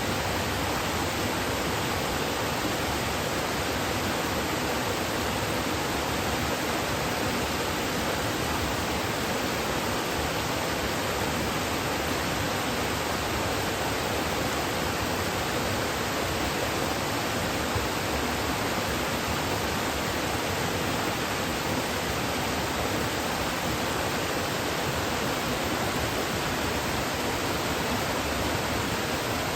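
Kuzuryu Falls, a waterfall, running with a steady, unbroken rush of falling water.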